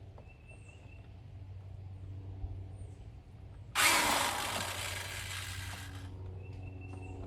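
Corded electric drill running in one burst of about two seconds, starting about halfway in, driving a screw to fix a doorbell camera mount to the wall.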